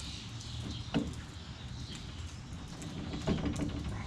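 A few knocks from the car's bare rear hub and brake drum being rocked by hand to check for play, with one sharp knock about a second in. A steady low hum runs underneath.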